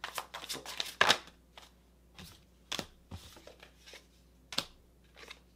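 Tarot cards being handled and laid down on a wooden table: a quick run of papery flicks, then a few sharper, separate card snaps.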